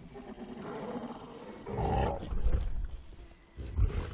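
Gorillas calling: a low, rough rumble that builds to a loud burst about two seconds in, followed by deep low thumps near the end.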